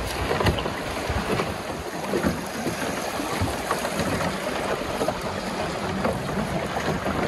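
Fast river water rushing and splashing around a raft, with wind rumbling on the microphone.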